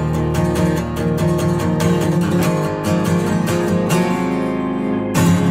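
Background music: acoustic guitar strumming a steady rhythm.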